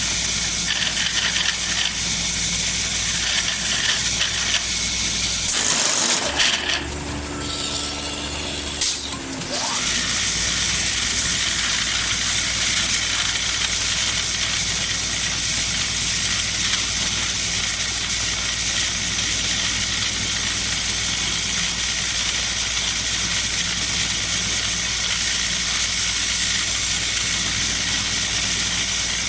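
Automatic wood-turning and boring machine running: a steady hiss over a low hum. About six seconds in, a few seconds of a different, lower machine sound ends in a sharp click.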